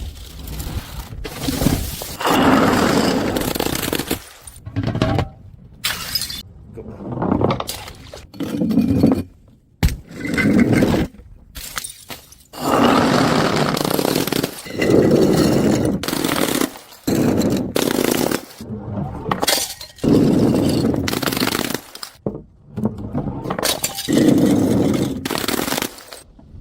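A string of breaking and crushing sounds: glass bottles shattering and brittle things crunching, a dozen or so in a row, each lasting a second or two and starting and stopping abruptly.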